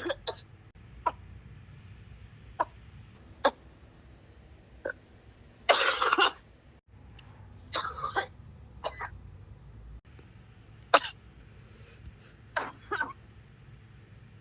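A person coughing hard, about eleven separate coughs spread out with short gaps between them. Some are quick and light; longer, harsher coughs come about six, eight and thirteen seconds in.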